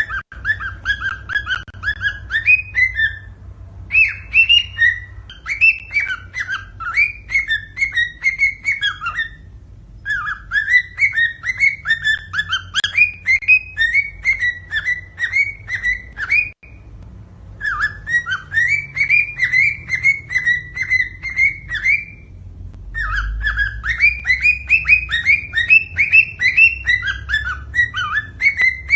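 Cockatiel singing: phrases of quick, repeated whistled chirps that each rise in pitch, broken by short pauses every four to seven seconds. A low steady hum runs beneath.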